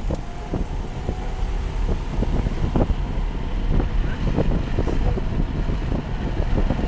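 Cabin sound of a 1998 Toyota Camry's V6 automatic running hard on a track: a steady low engine and road rumble with wind, and frequent irregular knocks and rattles.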